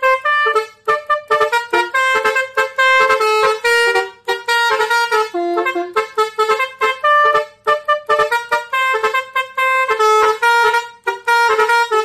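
Basuri musical air horn, the multi-trumpet melody horn fitted to Indonesian buses and trucks, playing a quick tune of short blasts and a few longer held notes that jump up and down in pitch.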